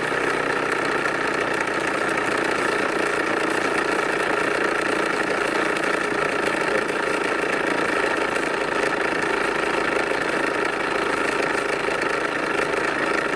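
Small live steam engine running under steam, a steady, unbroken hiss.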